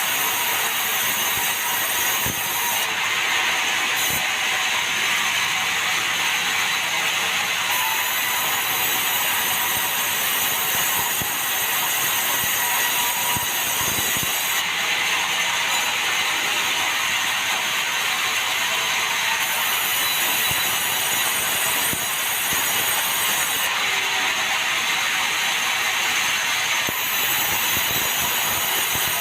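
Sawmill saw cutting meranti wood: a steady, loud mechanical noise with a rattling clatter, its upper hiss shifting a few times through the cut.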